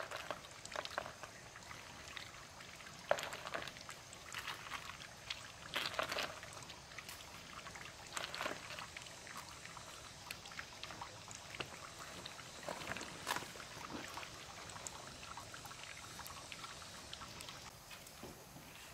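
Water trickling and pouring along a split-bamboo channel, with irregular sharp clicks and rattles of snail shells being picked up and set down on a banana leaf.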